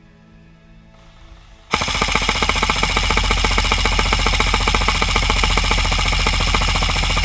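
Krytac Kriss Vector airsoft electric gun firing one long full-auto burst of about six seconds, starting suddenly under two seconds in: a fast, even rattle with a steady high whine over it.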